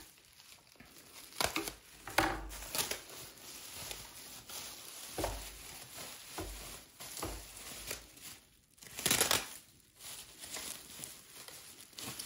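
Packaging crinkling and rustling by hand in irregular bursts as a toy is unwrapped, with a louder rustle about nine seconds in.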